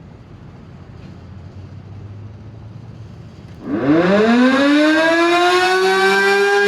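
Outdoor civil-defence warning siren sounding for a test. About three and a half seconds in it starts and winds up quickly from a low pitch to a loud, steady tone rich in overtones.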